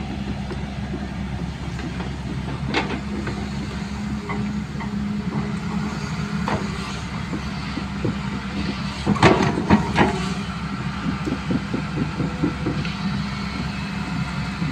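Hyundai tracked excavator's diesel engine running steadily, with a few sharp knocks as the machine works against an uprooted tree's root mass. The loudest knocks come in a cluster about nine to ten seconds in.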